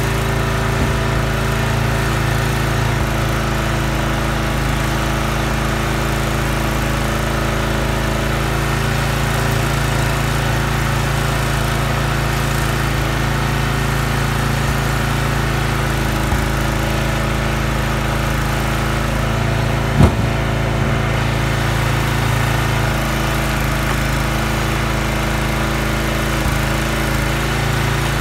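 Huskee gas log splitter's small engine running steadily while it drives the splitter working through firewood rounds. One sharp knock stands out about twenty seconds in.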